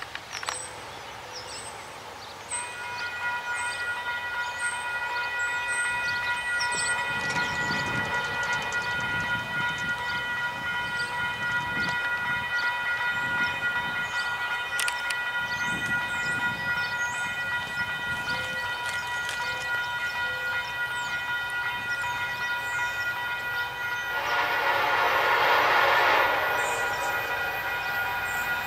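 Locomotive air horn sounding one long, unbroken chord of several notes, starting about two seconds in, as a horn salute from an approaching Union Pacific train. A louder rushing noise swells under it near the end.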